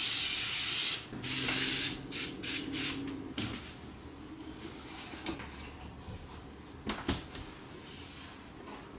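Cleaning spray hissing onto a window for about a second, then a cloth rubbing over the glass in quick strokes. A single sharp click comes near the end.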